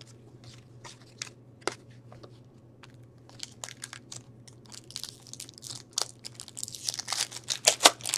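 Trading cards handled with light scattered clicks, then from about five seconds in a foil hockey-card pack wrapper crinkled and torn open, the crinkling growing louder near the end. A steady low hum runs underneath.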